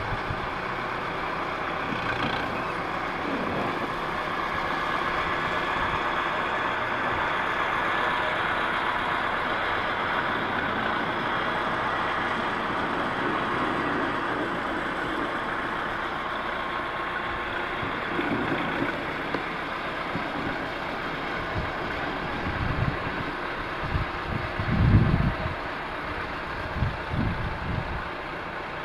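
Tractor engine running steadily while its front loader lifts a round hay bale, with a few low knocks and thumps in the last few seconds.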